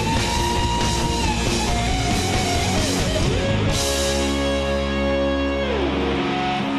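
Live alternative rock band playing, with electric guitars and drums. About halfway through the music settles on a long held chord, and its notes slide down in pitch near the end.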